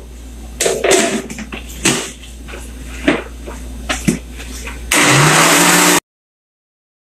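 Knocks and clatter of a plastic blender jar and its lid being handled. About five seconds in, the countertop blender starts beating the eggs and sugar, running loud and steady for about a second before the sound cuts off suddenly.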